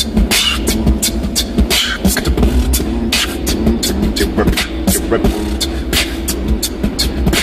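Beatboxing: quick, rhythmic mouth-made drum clicks and beats, over the car's steady low rumble.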